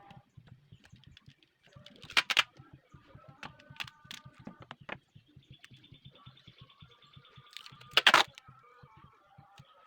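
Two brief, loud scraping or clattering noises, one about two seconds in and one about eight seconds in, over a faint background of thin, steady high tones.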